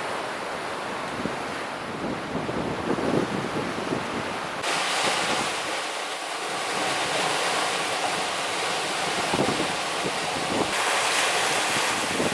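Strong wind buffeting the microphone over surf breaking on a beach. The sound changes abruptly twice, about a third of the way in and near the end, as if between separate takes.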